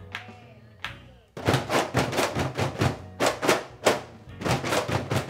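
Several Peruvian cajones struck with the hands and played together. After a near-pause with a single stroke, a fast, dense run of slaps and bass tones starts about a second and a half in.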